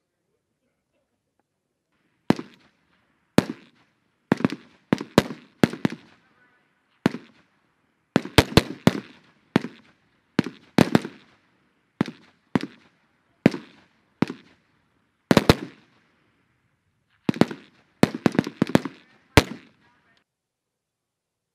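Rifle fire on a range from several M4-style carbines: about two dozen single shots at an irregular pace, some in quick pairs and clusters, each with a short echo. The firing starts about two seconds in and stops shortly before the end.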